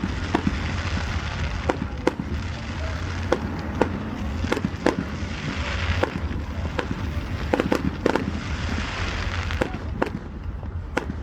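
Fireworks display: a string of sharp bangs, one or two a second, over a continuous hissing crackle that fades near the end.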